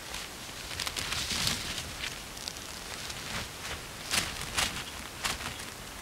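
Rustling and crackling in dry shrubby bog vegetation over a steady outdoor hiss, with a few sharper rustles about four to five seconds in.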